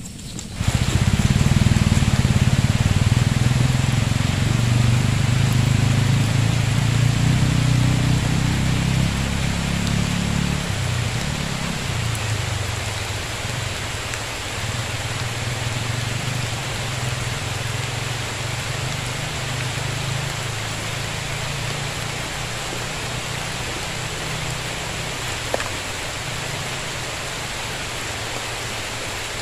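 Steady rushing hiss of rain and a flood-swollen river, with a low rumble under it that is strong for the first ten seconds or so and then drops to a weaker level.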